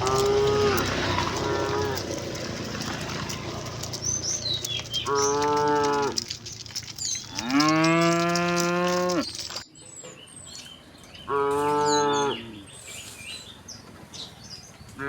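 Cattle mooing: a string of separate moos, two short ones at the start, then single moos about five, seven and a half and eleven seconds in. The one around eight seconds is the longest and loudest.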